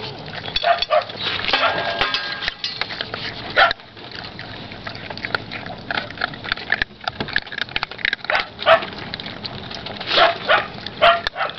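Puppies eating kibble from a steel bowl, with short yips and whines breaking in irregularly: a cluster about two seconds in and more near the end.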